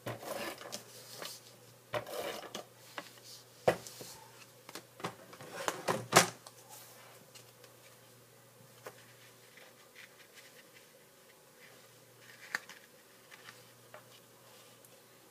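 Adhesive tape runner being pulled in strokes across the back of a cardstock panel, giving a run of sharp clicks and short rasps over the first six seconds or so, with paper rustling. After that only faint paper handling and a few light taps.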